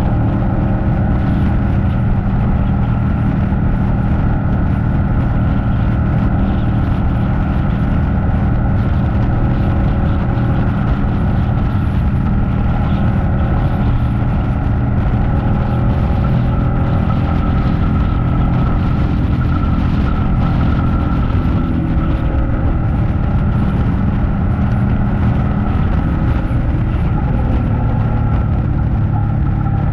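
Ducati Panigale 899's Superquadro L-twin engine running steadily under way, its pitch holding level and shifting slightly about two-thirds of the way through.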